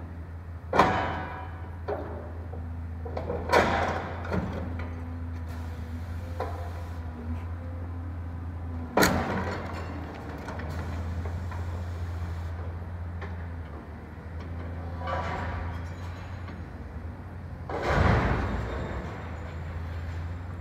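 Demolition excavator running with a steady low engine drone while its demolition attachment breaks up blockwork and corrugated-metal framing. There is a series of crashes: the loudest about a second in, others near four and nine seconds, and a longer crash near eighteen seconds.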